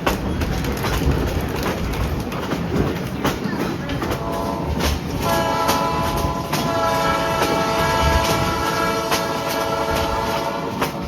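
Train horn sounding a steady multi-note chord for about six seconds, starting about four seconds in with a brief break, over the clicking of railroad car wheels on the rail joints.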